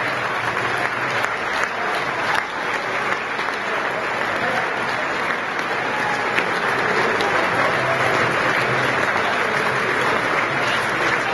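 A crowd applauding steadily, with many people clapping together and voices mixed in.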